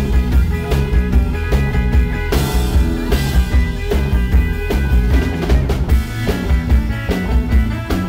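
Live rock and roll band playing an instrumental passage: electric guitar over upright bass and a steady drum beat, with a cymbal wash about two and a half seconds in.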